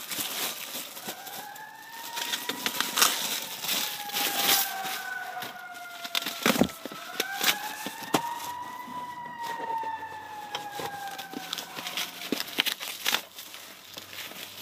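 A siren wailing slowly up and down, its pitch rising and falling twice. Crinkling and crackling of plastic wrapping and packaging being handled runs under it.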